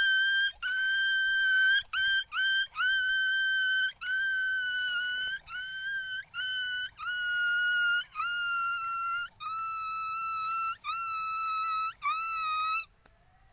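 A boy imitating a dog in a high falsetto whine: a dozen or so held notes, each scooping up at the start, with short breaks between them and the pitch slowly sinking toward the end.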